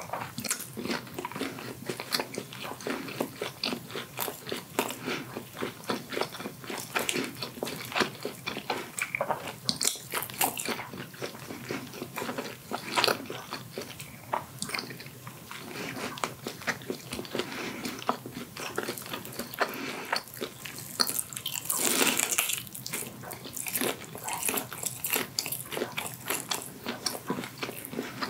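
Close-miked chewing of steamed giant black tiger prawn meat: many small wet clicks and smacks of mouth and teeth. There is a louder stretch about three quarters of the way through.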